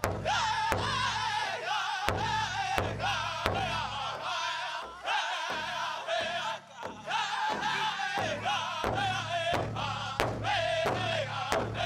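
A pow wow drum group singing a men's chicken dance song: high, wavering voices over a big drum struck in a steady beat, about three strokes every two seconds. The drumbeat changes pattern about halfway through.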